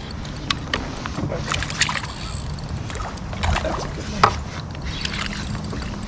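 Scattered clicks and knocks of rod, reel and gear against a fishing kayak, with light water disturbance, as a hooked largemouth bass is played on a spinning rod; the sharpest knock comes a little past four seconds in.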